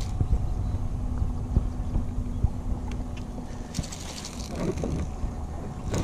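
Wind buffeting the microphone on a fishing boat over a steady low motor hum, which stops about three and a half seconds in.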